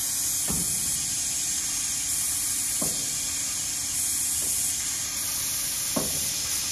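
Steady hiss with three short dull knocks, two to three seconds apart, as the tailstock quill of a 2008 Haas TL3 CNC lathe is moved.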